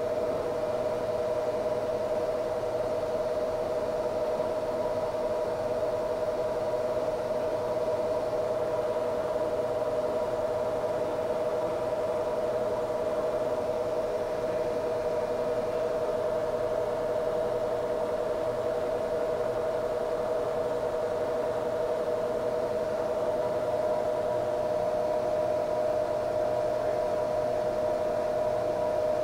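Jones & Shipman 1300X cylindrical grinder running its plunge cycle: a steady machine whine of two close tones over a hiss, unchanging throughout.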